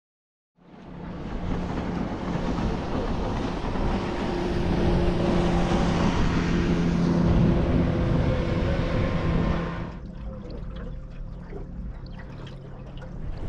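Boat motor running with water and wind rushing past. At about ten seconds it gives way to quieter water sounds with light clicks and taps.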